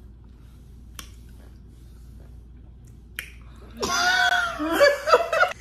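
Two sharp finger snaps about two seconds apart, then near the end a loud high voice sound without words that slides up and down in pitch, like a playful sung or hummed tune, cut off sharply.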